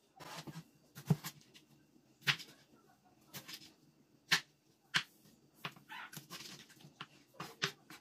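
Kitchen knife cutting tomatoes on a bamboo cutting board: irregular sharp knocks of the blade hitting the wood, a dozen or so, at uneven gaps of up to about a second.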